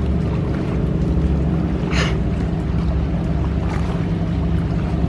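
Motorboat engine running on the lake, a steady low drone.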